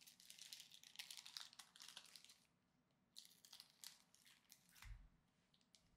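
Faint crisp rustling and crinkling as Pokémon trading cards are handled and slid against one another, in two spells with a short pause between, and a soft low bump near the end.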